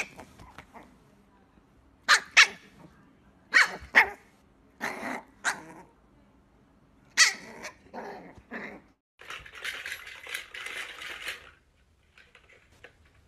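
A young puppy barking in short, sharp yaps, about ten in all and often two in quick succession. Near the end they give way to a couple of seconds of rough hissing noise.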